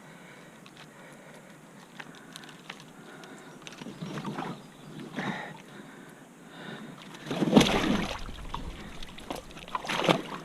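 Creek water sloshing and splashing around someone wading in a belly boat, in irregular bursts that start about four seconds in, the loudest about seven and a half seconds in.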